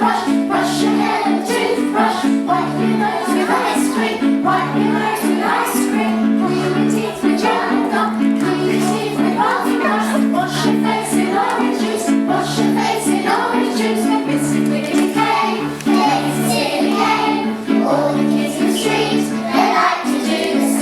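Young children singing a cumulative nursery song together with a woman leading them, over a steady, repeating instrumental accompaniment.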